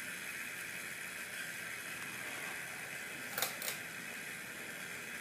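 Two quick light clicks, a fraction of a second apart, from a small metal gimbal gyroscope being handled, over a steady faint hiss.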